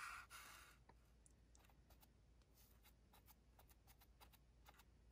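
Near silence, with faint dabbing and light taps from a torn sponge held in tweezers being pressed onto small plastic model barrels on cardboard; a soft rustle at the start, then only scattered faint ticks.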